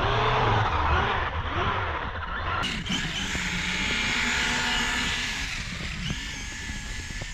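Brushless electric motor of a Kyosho Foxx VE RC truck whining and revving up and down at full throttle as its paddle tires churn through deep powdery snow, the motor strained by the load. The sound drops abruptly about two and a half seconds in and turns quieter.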